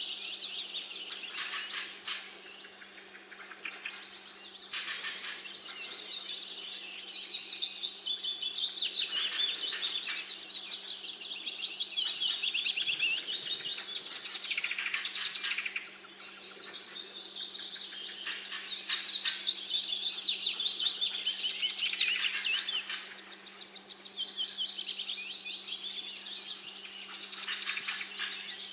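Songbirds singing in an overlapping chorus of rapid trilled phrases that swell and fade every few seconds.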